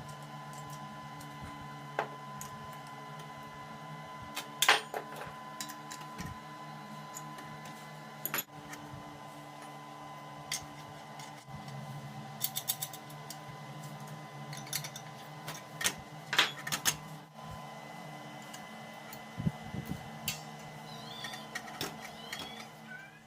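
A steady machine hum with scattered clicks and knocks on top, the loudest about five seconds in and again around sixteen seconds; the hum cuts off suddenly at the end.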